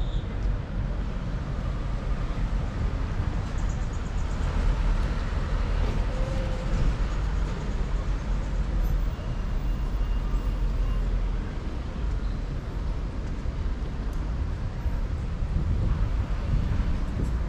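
Steady low rumble of outdoor street ambience with road traffic.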